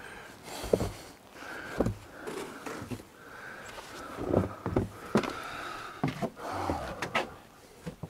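A metal stovepipe section being knocked and shaken to empty out a heavy load of creosote: irregular dull knocks and thuds, about one a second, with scraping and rattling in between.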